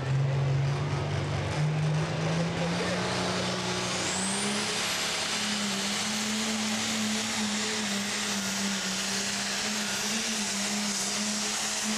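Pulling tractor's diesel engine at full power under load as it drags a weight-transfer sled. The engine note climbs over the first four seconds and then holds steady, with a high whine rising alongside it.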